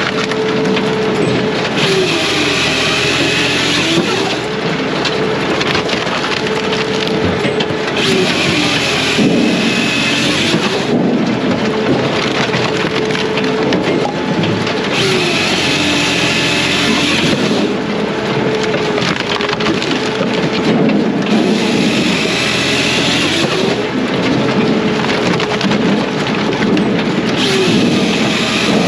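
Brute Force USA 18-24HD diesel firewood processor running on hardwood, working through a loud cycle about every six seconds. Each cycle brings a harsh cutting and splitting noise of about two seconds, and the engine's pitch drops under the load, then recovers.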